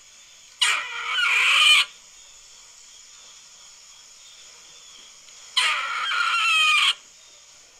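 A squirrel giving two harsh, rasping calls, each a little over a second long and about five seconds apart, with crickets faintly in the background.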